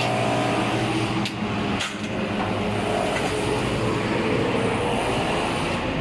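Steady engine-like machine hum in the workshop, with two short metallic clinks about one and two seconds in.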